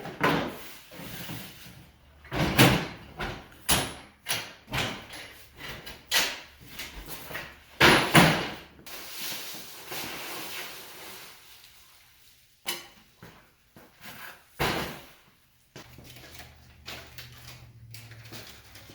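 Irregular knocks, clunks and rustling of materials being handled, loudest about two and a half and eight seconds in, quieter in the second half.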